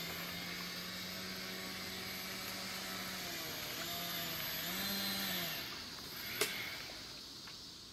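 Small foam RC seaplane's motor and propeller humming steadily as it taxis on the water. The pitch wavers up and down a couple of times in the middle, then the hum fades away; a single sharp click about six and a half seconds in.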